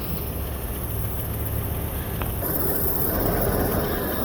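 Ford Class C motorhome's engine running as the vehicle drives slowly, kept alive on ether sprayed into the intake because its fuel pump has failed; a steady low rumble.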